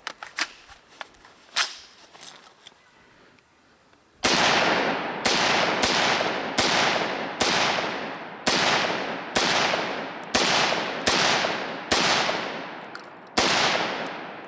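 A few light clicks, then a .300 Blackout AR pistol firing semi-automatic: about a dozen shots a little under a second apart, each trailing a long echo. The pistol feeds and cycles every round from a Lancer magazine without a stoppage.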